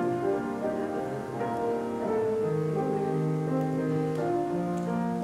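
Slow instrumental music on a keyboard: soft held chords that change about every two seconds.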